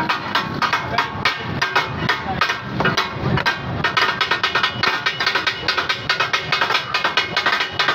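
Steel spatulas striking and scraping on a large iron tawa as fish katakat is worked and served: a rapid, irregular clatter of metal hits, several a second, with a slight ring.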